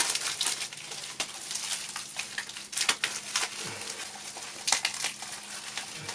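Plastic wrapping crinkling and rustling as a plastic-wrapped skateboard wheel is handled, with scattered small crackles and clicks.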